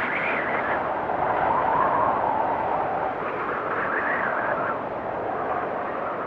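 Blizzard wind blowing hard and steadily, with a whistling tone that wavers up and down in pitch as the gusts rise and fall.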